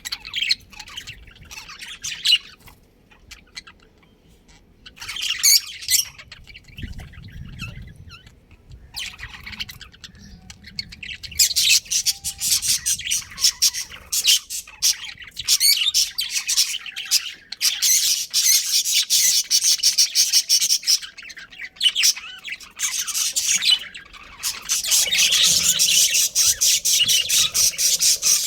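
Budgerigars chirping and chattering in quick high-pitched notes. Sparse at first with a short lull a few seconds in, then a dense, nearly unbroken chatter from about halfway.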